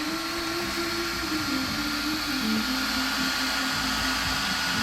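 Small electric motor whining steadily, its pitch drifting up and down a little.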